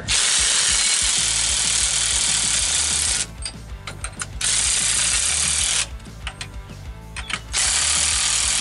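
A cordless power ratchet running the nylock nuts up new leaf-spring U-bolts, in three bursts: about three seconds, then about a second and a half, then about a second near the end.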